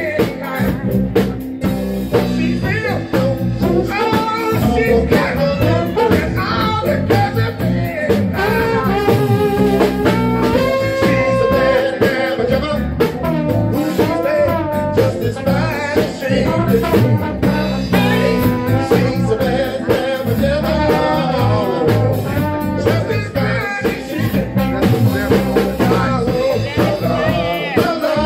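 Live band playing a song: a singer over electric bass guitar, keyboard, drum kit and trombone.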